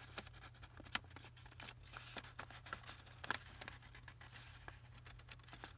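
Faint rustling and light taps of paper sheets being handled and laid in place, with scattered small clicks, the sharpest about a second in and just after three seconds.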